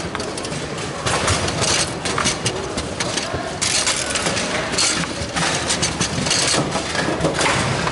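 Table football in play: the metal rods sliding and spinning and the ball knocking against the players and the table walls in a quick, irregular run of clacks, over a steady background din of voices.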